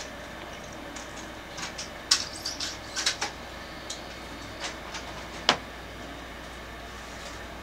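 A scattered run of small, sharp clicks and ticks, about a dozen of them, with two louder ones, over a steady low hum and hiss.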